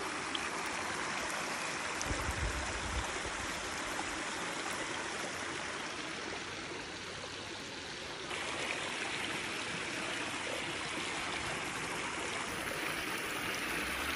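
Shallow stream of water running steadily over rocks in small cascades, with a brief low rumble about two seconds in.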